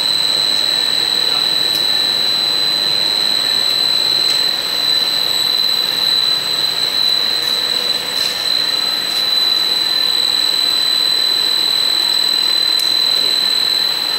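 Pet chew snack production line machinery running: a steady, loud mechanical din with a constant high-pitched whine over it.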